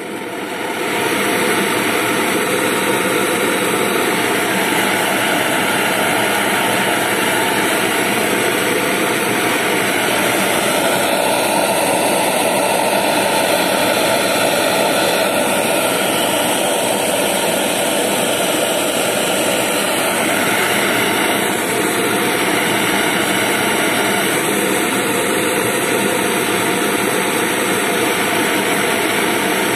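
Optimus 111B liquid-fuel pressure stove with a roarer burner, freshly lit after preheating, burning with a loud steady roar that swells up within the first second and then holds even.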